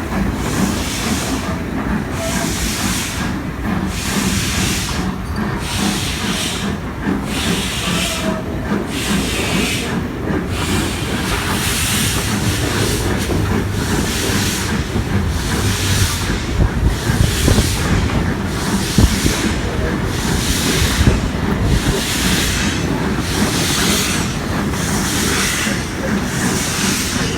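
Steam locomotive exhaust heard from a coach behind it: rhythmic chuffs that quicken gradually from about one every second and a half to more than one a second as the train pulls away, over the rumble of the train. The engine is working hard, which the passengers think is because a dead diesel is being towed behind it.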